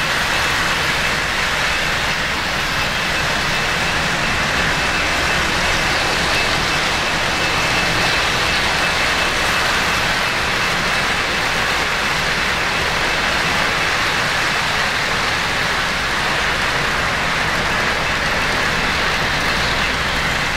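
Three-rail O-scale model freight train running past close by: a steady rumble and rattle of metal wheels on the track. A faint steady high tone runs underneath.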